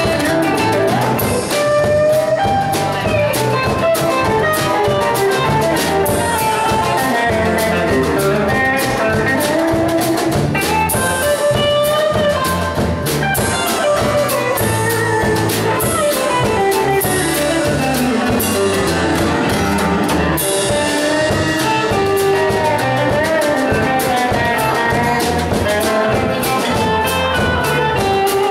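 Live country band playing an instrumental break between verses: guitars, bass and drum kit keeping a steady beat while a lead line carries the melody. About halfway through, a long falling run drops in pitch over several seconds.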